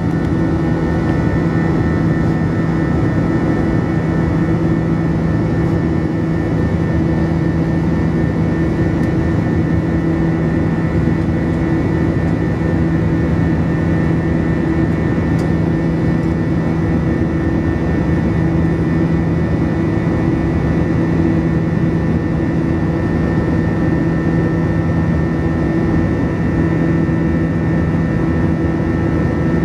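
Airbus A321 cabin noise during the climb after takeoff, heard beside the wing-mounted jet engine: a steady, even drone of engine and airflow with a constant low hum and a thin higher whine.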